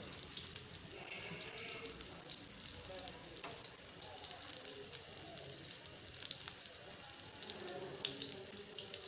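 Egg-coated potato patties shallow-frying in oil in a pan: a steady sizzle with frequent small crackles and pops.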